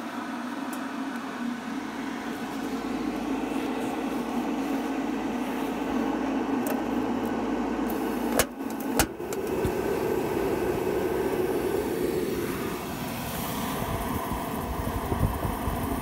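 Mr. Heater 38,000 BTU forced-air propane heater: its fan runs steadily, two sharp clicks of the igniter come about eight and a half seconds in, and the burner then lights and burns with a louder rushing sound.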